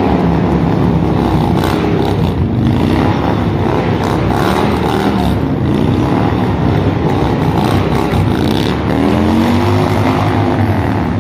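A big bagger-style cruiser motorcycle's engine revving up and down continuously as the bike is ridden in tight turns, with several rising and falling revs near the end.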